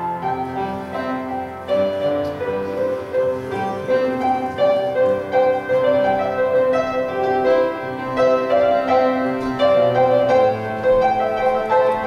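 Piano playing a melody of sustained notes over chords, changing every half second or so.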